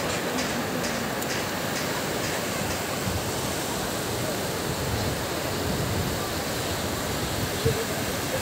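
Ocean surf: small waves breaking and washing up a flat sandy shore in a steady, even wash, with a brief knock near the end.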